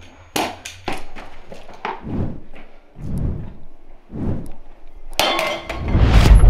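A series of sharp knocks and dull thuds, like blows or bangs in a scuffle, then a loud noisy burst about five seconds in and a heavy low rumble swelling up near the end.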